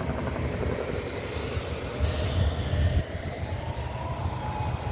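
Distant outdoor warning siren sounding an alternate wail, its faint tone gliding slowly up and then holding, under a steady low rumble.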